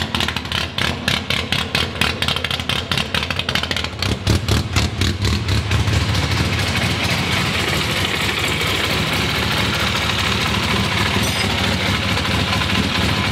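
Freshly installed 1275 cc BMC A-series four-cylinder race engine in an Austin-Healey Bugeye Sprite idling on its first run. It runs uneven and lumpy at first and louder for a couple of seconds about four seconds in, then settles into a steady idle.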